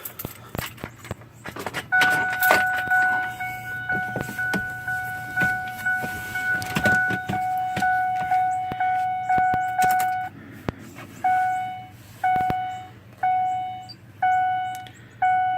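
High-pitched whine from a 2005 Ford F-150 that will not crank. It is a steady tone starting about two seconds in, with scattered clicks and rattles. After about ten seconds it turns into pulses about once a second. The owner has no idea what causes it.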